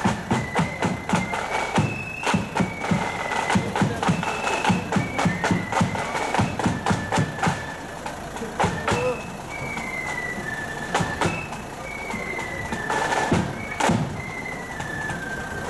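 Marching flute band playing. Flutes carry a stepping melody over a steady beat of bass drum and sharp snare strikes, about two beats a second, with the drumming sparser in the second half.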